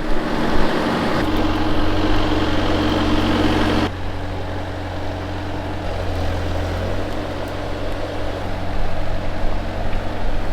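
Bobcat skid steer engine running steadily under load. It is louder and harsher for the first few seconds, then drops suddenly about four seconds in to a quieter, even run.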